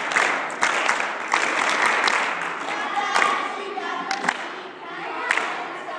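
Young cheerleaders chanting a cheer together, with sharp hand claps scattered through the chant.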